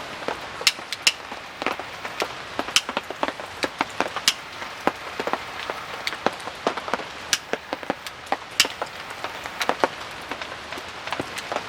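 Rain falling: a steady hiss with irregular, sharp drops tapping close by.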